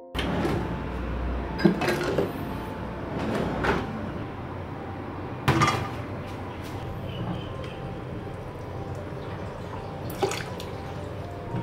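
Knocks and clinks of a thick glass Pyrex measuring cup being handled on a gas stovetop, then a silicone ladle scooping pasta water from the spaghetti pot into it, with water dripping and pouring, over a steady hiss.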